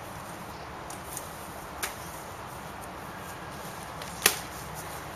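Short practice swords and shields clashing in sparring: a light knock about two seconds in, then a single sharp crack of a blow landing a little after four seconds, the loudest sound.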